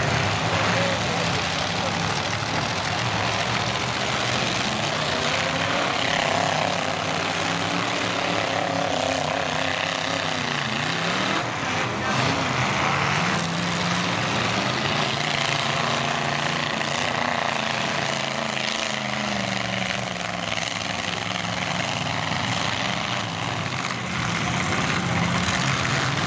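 Several demolition derby pickup trucks' engines running and revving, their pitch rising and falling over a steady roar of noise.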